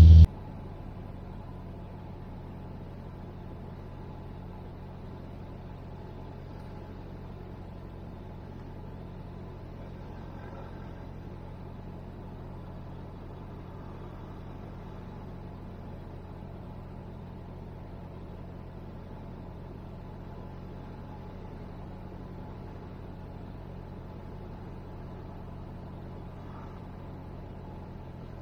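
Steady drone of a Cessna 172N's Lycoming O-320 four-cylinder engine and propeller, heard from inside the cabin.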